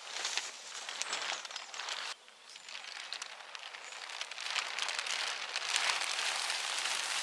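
Black plastic tarp crackling and rustling as it is dragged and folded over the ground. The sound drops off abruptly about two seconds in and builds back up in the second half.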